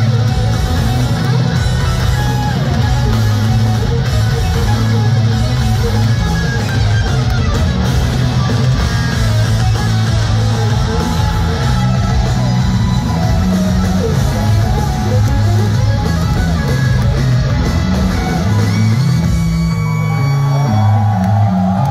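Live hard rock band playing an instrumental piece: distorted electric guitars, bass guitar and a driving drum kit, heard from the audience in a large hall.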